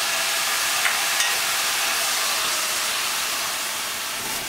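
Brandy sizzling in a hot skillet of steak Diane as the pan is readied for flambé: a loud, steady hiss that eases slightly near the end.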